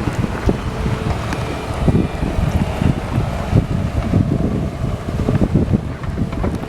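Wind buffeting the microphone: a steady low rumbling noise that rises and falls in gusts, with a few faint ticks above it.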